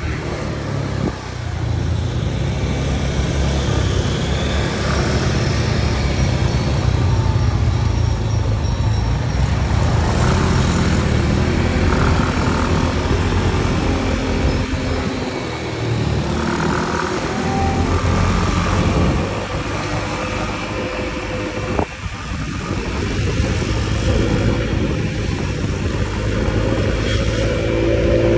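Riding a Honda Click motor scooter through city traffic: steady engine and road noise, with the engine notes of other vehicles rising and falling as they pass.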